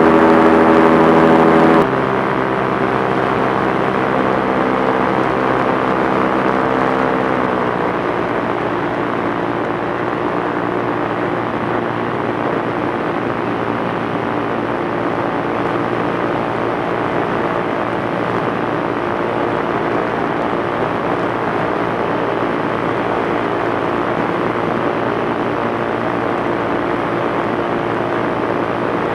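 Propeller aircraft engine running steadily with a strong droning tone. It gets quieter about two seconds in, as if throttled back, and its pitch falls slightly around seven to eight seconds in.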